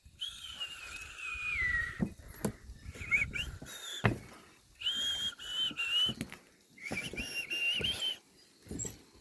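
Someone whistling: a long falling note, then several short wavering phrases, with low handling and footstep rumble underneath.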